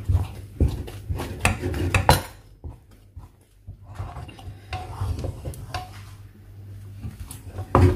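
Wooden spoon stirring and beating a thick ga'at dough in a nonstick pot, with irregular scraping and knocks of the spoon against the pot. It is busiest in the first two seconds, goes quieter around three seconds in, then the scattered knocks resume.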